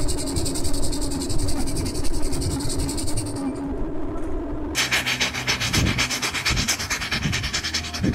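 Homemade steam motorcycle's steam engine exhausting in rapid, even chuffs with a hiss of steam as it runs at speed. About five seconds in the chuffing becomes louder and brighter.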